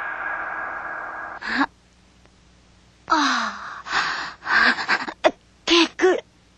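A fading rush of noise, then after a short pause a cartoon frog's pained gasps and groans in several short breathy bursts, some sliding down in pitch: the frog is hurt and exhausted.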